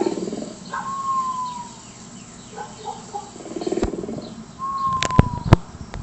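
Animal and bird calls, with a whistled note that falls slightly in pitch, heard twice, and a few sharp clicks near the end.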